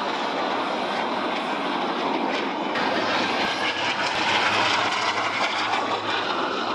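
Steady rushing jet noise from CT-114 Tutor jets, each with a single turbojet engine, flying overhead.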